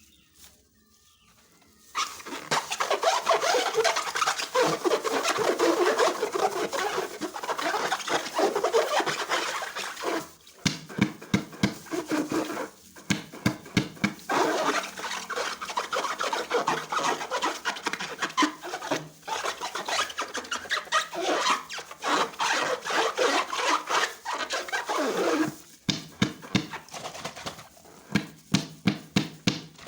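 Slime being squeezed and worked by hand: wet squelching with rapid sticky clicks and pops, starting about two seconds in, with bursts of sharper crackling pops partway through and near the end.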